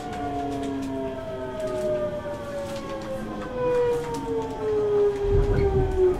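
Hankyu 8000 series train's Toshiba GTO VVVF inverter whining as the train slows, several tones falling steadily in pitch together. A low rumble rises near the end and is the loudest part.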